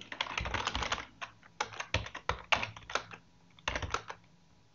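Typing on a computer keyboard: a fast flurry of keystrokes at first, then single key presses and short runs with small pauses between them, as a shell command is entered.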